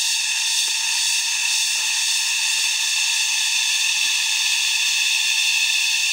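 Steady, high-pitched chorus of cicadas, a dense shrill buzz that holds at one level throughout.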